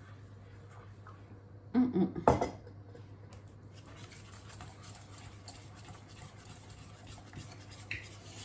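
A utensil stirring a thickening flan custard in a metal saucepan: light scraping and clinking against the pan, with a louder knock and clatter about two seconds in.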